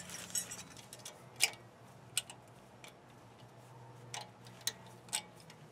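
Light metallic clicks, about half a dozen spread out, as new brake pad hardware clips are handled and pressed into place on a truck's front caliper bracket.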